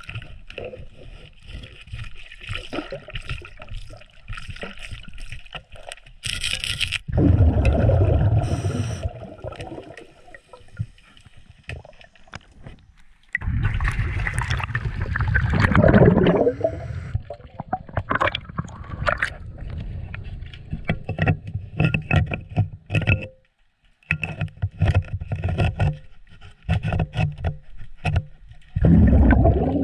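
Heard underwater: a scuba diver's regulator exhaling, loud bubbling surges three times, between scattered knocks and scraping of gloved hands and tools against the sterndrive.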